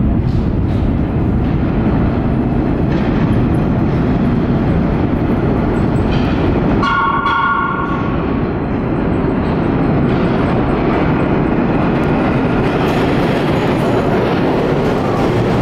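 Subway train rumbling steadily as it runs through the tunnel into the station. About seven seconds in there is a brief high-pitched tone lasting about a second.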